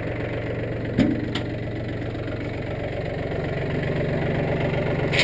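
John Deere tractor's diesel engine idling steadily while the front loader lowers a hanging load, its note rising slightly about three seconds in. A single sharp knock about a second in.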